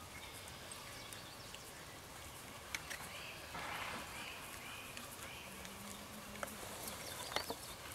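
Faint, soft hoofbeats of a Quarter Horse/Paint cross cantering on grass, then trotting near the end, with a short breathy rush about three and a half seconds in.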